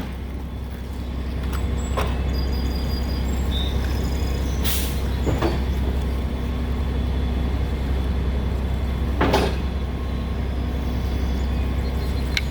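A large engine idling steadily with a low hum, with a few short sharp sounds over it.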